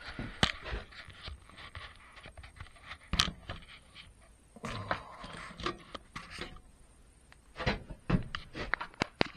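Packaging and parts being handled: rustling and scraping, with scattered knocks and clicks as things are moved and set down.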